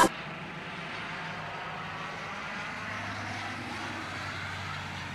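Steady vehicle noise: an even rushing sound over a faint low hum, unchanging throughout.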